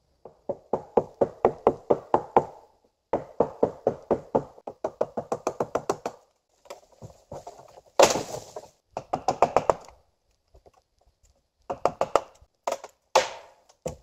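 Rapid runs of sharp knocks, about five a second, in several bursts separated by short gaps, with one louder, harsher hit about eight seconds in.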